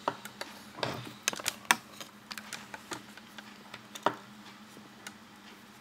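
Irregular light clicks and taps of small metal tools and parts being handled on a wooden workbench, with two louder clicks near the middle and about four seconds in.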